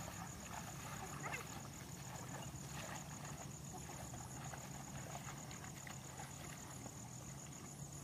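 A water buffalo plods through the flooded paddy mud, dragging a wooden hand plough, with faint irregular sloshes and squelches. A steady, pulsing high buzz runs underneath, and a brief rising call comes about a second in.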